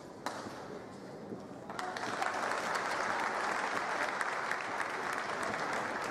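A single racket hit on a shuttlecock, then from about two seconds in a crowd applauding and cheering as the rally ends. The applause swells and then eases off near the end.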